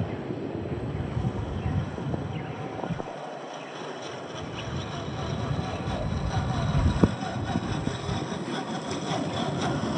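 1/10-scale RC crawler driving off-road: its brushed 540 electric motor and geared drivetrain running while the tyres work over dirt and rock, with one sharp knock about seven seconds in.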